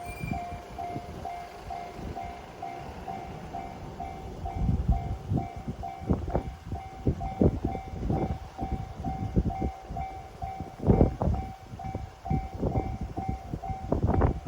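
Japanese level-crossing alarm ringing with a rapid, evenly repeated electronic ding. From about four seconds in, a passing train adds rumbling and clattering wheel noise.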